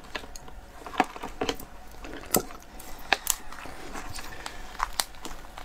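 Handling sounds of a large raw spiny lobster on a wooden board: about seven scattered sharp clicks and taps as its hard shell and spiny legs are gripped and shifted, with quiet between them.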